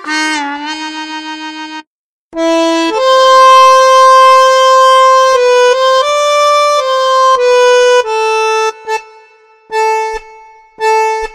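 Korg Pa700 arranger keyboard playing a single-note melody on a solo lead voice, bending in pitch at the start. It stops briefly about two seconds in. A different preset then plays long held notes, and near the end short repeated notes on one pitch.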